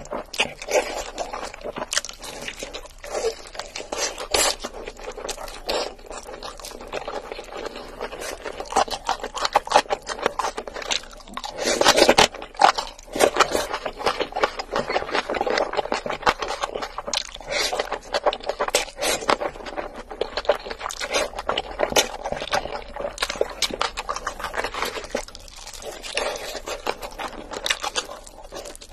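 Close-miked crunching and chewing of crispy sauced fried chicken, a dense run of crackles and wet mouth sounds, loudest in a burst about twelve seconds in.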